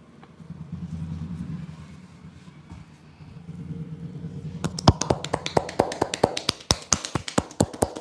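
Massage hand tapping: a fast, even run of sharp slaps, about five a second, starting a little past halfway, as the barber's hands strike the customer in percussive massage strokes. Before it there is only a faint low murmur.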